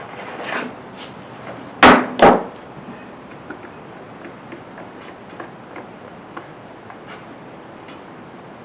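Two sharp knocks in quick succession about two seconds in, then scattered light clicks of small metal parts being handled.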